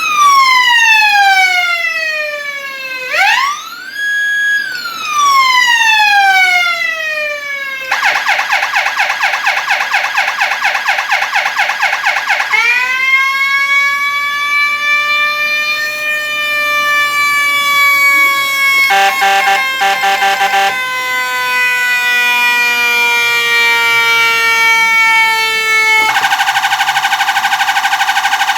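Whelen Cencom Gold electronic siren cycling through its tones in hands-free mode. It starts with a mechanical-siren tone winding up and coasting down in long falling glides. Then comes a very fast warble, slow rising and falling wails, and a short pulsing stretch, and it ends on a rapid pulsed tone.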